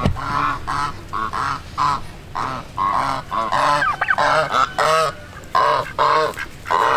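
Farm poultry honking: a run of short, loud honking calls, about two a second.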